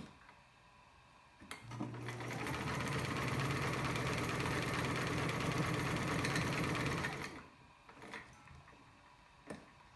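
Freshly overhauled Sears Kenmore 148 series all-metal sewing machine sewing a zigzag stitch: after a click it speeds up about two seconds in, runs steadily at a fast even stitch rhythm for about five seconds, then stops.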